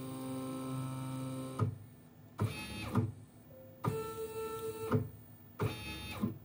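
Stepper motors of a G0704 CNC mill conversion whining as the axes move through an automatic touch-probe calibration routine. A steady move lasts about a second and a half, then comes a series of short moves, each starting with a click, with brief quiet pauses between them as the probe touches off at each angle.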